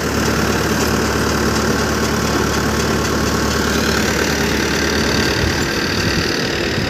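A four-cylinder diesel tractor engine drives a tractor-PTO multi-crop thresher, making a steady mechanical drone of engine, drum and belts. The thresher has just come free of a jam after its PTO was run in reverse.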